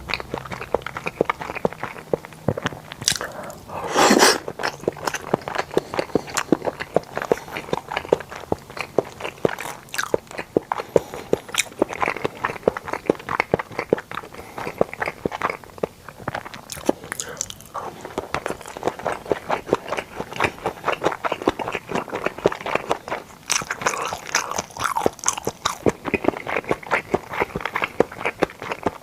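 Close-miked chewing and biting of sushi: a steady run of small, irregular wet clicks and crunches from the mouth, with one louder burst about four seconds in.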